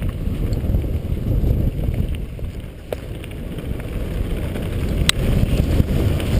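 Wind buffeting the microphone over the rumble of a mountain bike rolling fast down a dirt singletrack, with two sharp knocks, about three and five seconds in.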